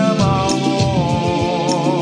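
A man singing a Twi-language song over a backing track with a bass line and a light beat, ending on a long held note that wavers in a vibrato.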